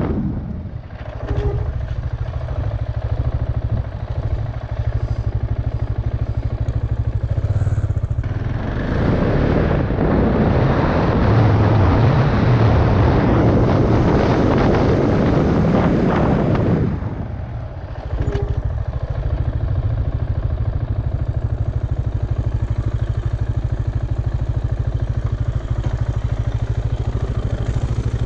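KTM Duke motorcycle engine running as the bike is ridden, with loud wind rush on the helmet microphone building in the middle and dropping off suddenly. After that the engine settles to a steady idle as the bike stands still.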